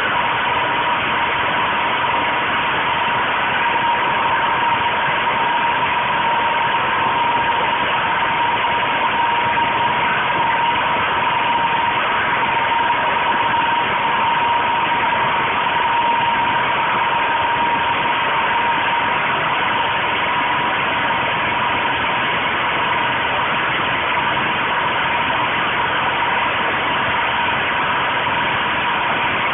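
Small portable petrol generator running steadily, with a constant whine over the engine noise. The engine is fed hydrogen-oxygen gas from an electrolyser through a tube into its intake.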